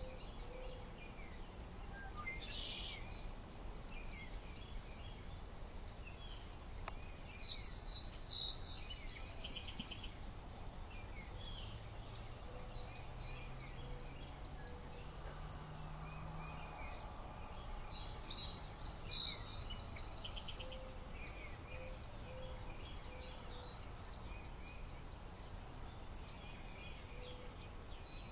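Morning birdsong outdoors: several birds chirping and calling, with a fast trill about a third of the way in and again about two-thirds of the way in, over a steady low background noise. A faint low drone rises in pitch in the middle.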